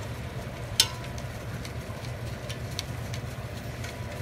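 Metal tongs clicking and scraping against a stainless steel pot as chicken wings are stirred, with one sharper clack about a second in. A kitchen exhaust fan hums steadily underneath.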